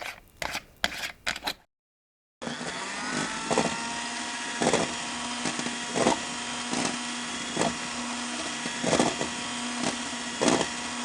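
A quick run of sharp clicks, then an electric food processor starts up and runs steadily with a motor hum. Loud knocks come roughly once a second as the contents strike the bowl and blade.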